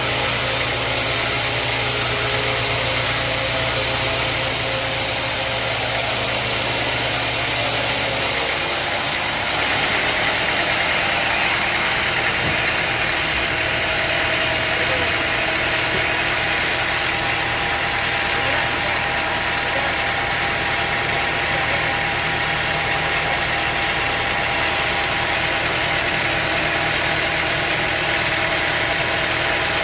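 Sawmill machinery running steadily with an engine-like hum. The sound changes abruptly about eight seconds in, then runs steadily again.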